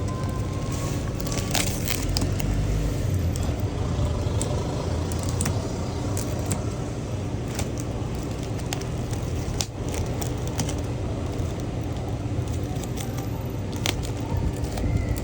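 Plastic packaging crackling and clicking as it is handled, over a steady low rumble.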